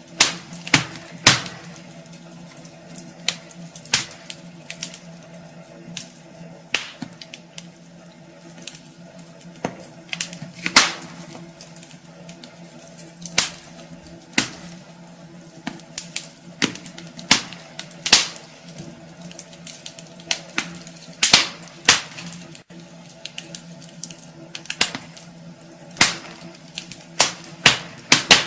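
Wood fire crackling in a fireplace: irregular sharp pops and snaps, roughly one or two a second, over a faint steady hiss.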